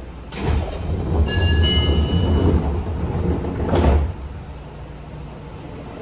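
Sliding passenger doors of a Seibu 20000 series train closing at a station. A short chime sounds and air hisses, then the doors rumble shut and end in a loud slam near the end, a forceful 'guillotine door' closing.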